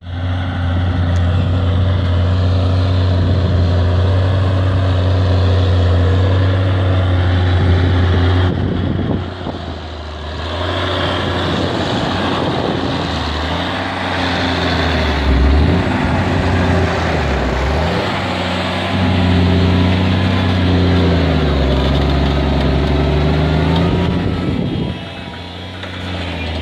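John Deere 6170M tractor's six-cylinder diesel engine running under load as it pulls a loaded scraper. The engine is steady for about the first eight seconds, then its pitch dips and rises several times.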